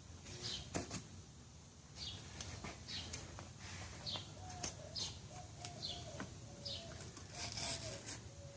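Scissors snipping through silk fabric in a string of short, crisp cuts at an irregular pace, about one every half second to a second, trimming the fabric close to a wall-upholstery track. The sound is faint throughout.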